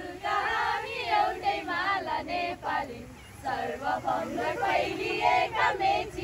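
A group of young women singing a song together in unison, with a short break in the singing about halfway through.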